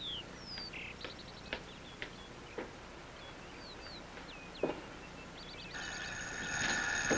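Birds chirping with short falling calls, and a few footsteps on the walk and porch steps. About six seconds in, an electric doorbell starts ringing steadily.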